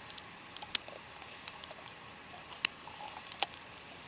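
A pit bull-type dog nosing at and eating food off gravel: a scattering of sharp crunches and clicks, the loudest a little past halfway.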